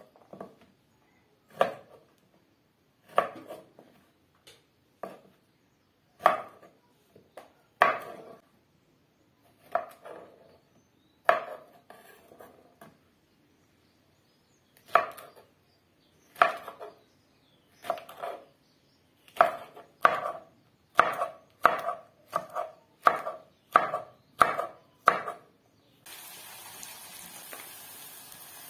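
Knife chopping okra pods on a wooden chopping board: single sharp strokes a second or two apart, quickening to about two a second in the second half. About two seconds before the end this gives way to a steady sizzle of onions frying in an aluminium pot.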